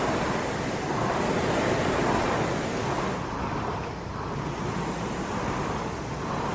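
Rowing machine whooshing as it is rowed, the rush swelling and easing with each stroke, roughly every second and a half.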